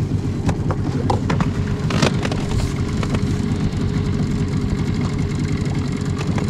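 A boat's outboard motor running steadily as a low rumble, with scattered light knocks and clicks over it.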